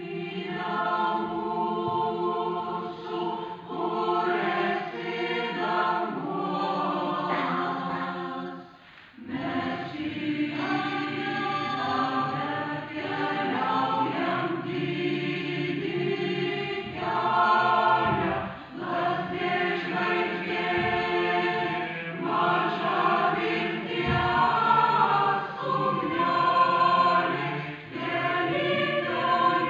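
Mixed choir of women's and men's voices singing together, with a brief break between phrases about nine seconds in.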